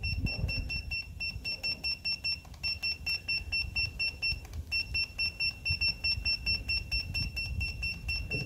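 Tymate TPMS monitor beeping as its set button is pressed and held to step the pressure value: a fast run of short, high electronic beeps, about four a second, pausing briefly twice.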